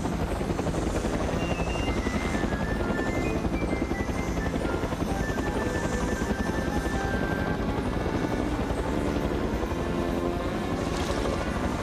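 Helicopter rotor sound effect, a steady fast chopping, under background music with a simple tune of short held notes.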